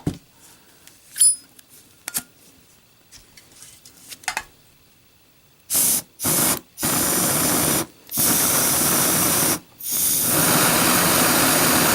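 Canned air (3M Dust Remover aerosol duster) hissing in blasts at a lit Zippo lighter: two short bursts, then three longer ones, the last running a few seconds. Before the spraying there are only a few faint clicks of handling.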